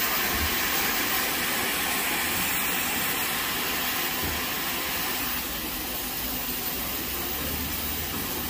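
Steam locomotive No. 9351, standing at the platform, blowing off steam from its safety valves: a steady, loud hiss that eases a little about five seconds in.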